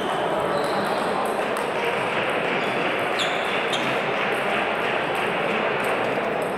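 Table tennis balls clicking irregularly on tables and bats from many games at once, with a few sharp pings about three seconds in, over a steady din of voices and movement in a large sports hall.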